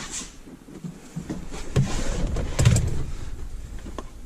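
Hands working loose plastic console trim in a Jeep Wrangler JK's cabin: rubbing and a few sharp clicks, with a dull knock about two and a half seconds in.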